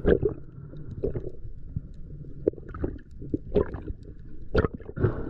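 Muffled underwater sound picked up through a camera housing: a low rumble of water movement with about six sharp knocks and clicks spread through, handling noise from a diver working with a stone crab and its broken-off claw.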